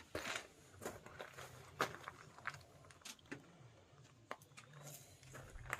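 Faint, scattered clicks and rustles of handling and movement, a few short sharp ticks among them.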